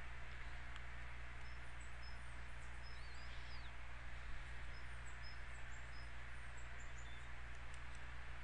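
Steady background hiss and low electrical hum of an open microphone, with faint, short high-pitched chirps scattered through the middle and one brief warbling whistle about three seconds in.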